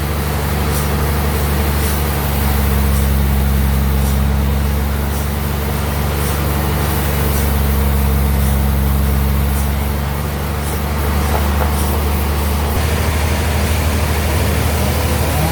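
Sawmill bandsaw running with a steady, loud low hum from its drive, with faint regular ticking over it.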